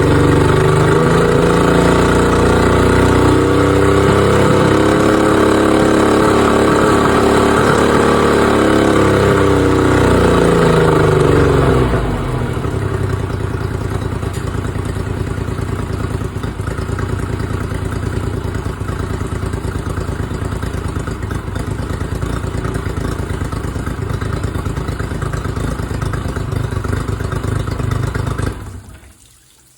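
Honda BAZS 50 hp four-stroke outboard motor running on a start-up check. For the first twelve seconds it runs at raised speed, its pitch bending up and down, then it drops to a lower, steady idle. It is shut off near the end.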